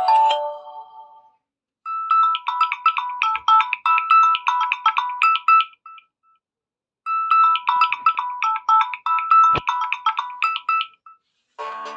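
Samsung Galaxy Tab A7 Lite stock ringtone: a quick melody of short, high notes plays for about four seconds, stops, then repeats once. The last notes of another tone fade out at the start, and a different, lower and fuller tune begins just before the end.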